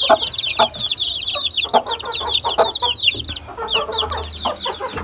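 A brood of young chicks peeping continuously: many short, falling, high-pitched peeps overlapping, thinning out near the end, with a few soft knocks among them. These are chicks that are sick and not eating properly in the cold.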